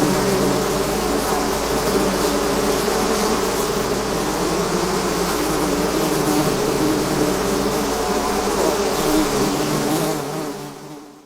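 A swarm of honeybees buzzing: many overlapping, wavering drones in a dense steady hum that fades out near the end.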